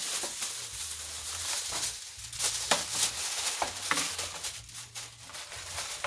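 Aluminium foil crinkling and rustling in short, irregular crackles as a sheet is pulled off the roll and folded around meat in a metal tray.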